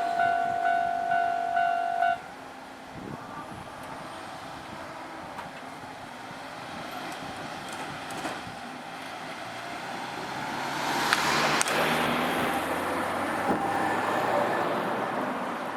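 Japanese railway level-crossing warning bell ringing its two-tone clang about twice a second, cutting off about two seconds in. After that comes a low rumble that builds from about ten seconds in, with a few sharp clicks.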